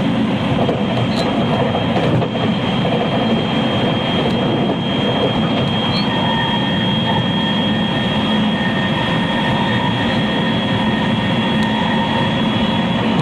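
Interior running noise of a JR West 223 series electric multiple unit, heard in the motored cab car KuMoHa 223-3016: a steady rumble of wheels and running gear with a constant high whine, the train running at an even pace.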